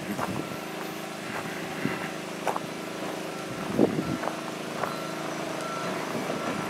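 Forklift engine running steadily, with a few short clunks, one louder near the middle.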